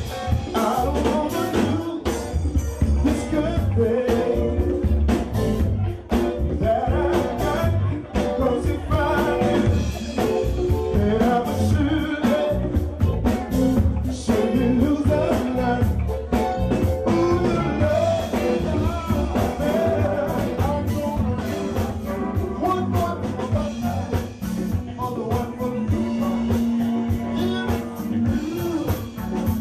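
Live band music with a man singing lead into a microphone over a drum kit and band accompaniment.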